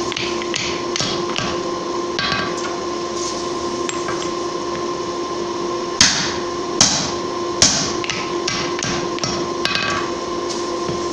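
Hammer blows on hot 1045 steel at the anvil while forging a punch, about two to three strikes a second, with three louder strikes about six to eight seconds in. A steady hum runs underneath.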